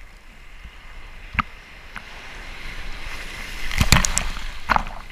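A breaking ocean wave crashing over the camera. A single sharp splash comes about a second and a half in, then rushing whitewater builds from about halfway through. It peaks with hard splashes around four seconds in, with one more splash shortly after.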